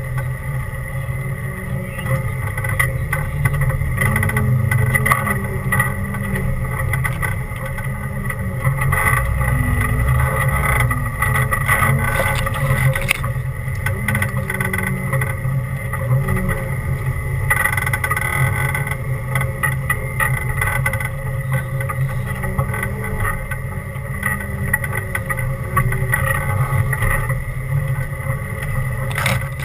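Off-road 4x4's engine running at low speed as it crawls over a rutted dirt trail, with frequent knocks and rattles through the run.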